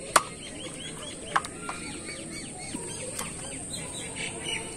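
A bird chirping in a quick run of short, repeated notes, several a second. Two sharp clicks, the loudest sounds, stand out in the first second and a half.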